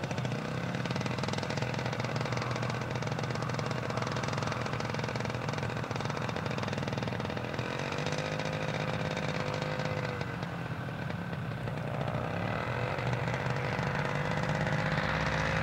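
Maxair Hummer ultralight's single-cylinder Zenoah two-stroke engine, with belt reduction drive, running as the aircraft rolls along the runway. Its pitch rises about halfway through, drops back, then rises again near the end.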